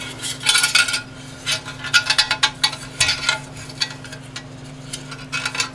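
Steel recoil spring scraping and clinking against the aluminium snowmobile recoil housing as it is wound in by hand, in irregular bursts of scrapes and clicks, busiest in the first half.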